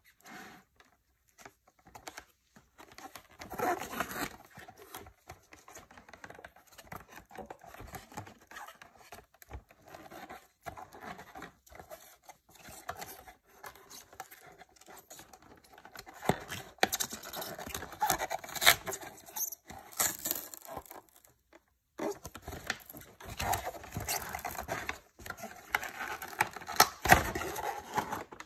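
Cardboard packaging handled by gloved hands, its flaps and insert being opened around a plastic salt gun: irregular rustles, rubs and clicks, busier and louder in the second half, with a short pause about three quarters in.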